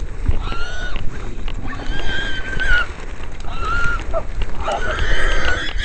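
Wild hog squealing, about four long high-pitched squeals a second or so apart.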